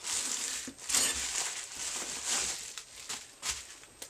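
Bubble wrap crinkling and rustling as a hot air gun is pulled out of it, with a few shorter rustles near the end.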